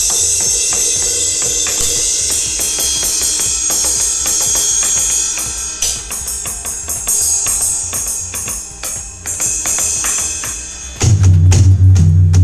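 AMW ED3 electronic drum kit played through a loudspeaker: a run of cymbal crashes and ride wash over kick and snare hits, then a string of separate drum hits. About eleven seconds in, loud, deep bass drum or tom hits ring on.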